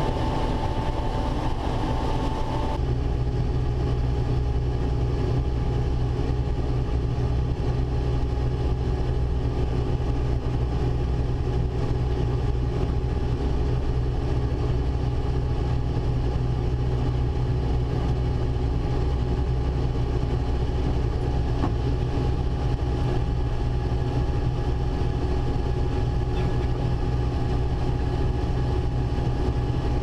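Combine harvester running steadily while unloading corn through its auger: a continuous low engine drone with a faint steady whine. About three seconds in the hiss drops away and the low drone grows stronger.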